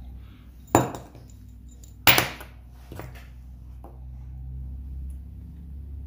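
Sharp clinks of small metal tools and phone parts being handled and set down on a work table: two loud clicks about a second and a half apart in the first half, then two lighter ticks, over a low steady hum.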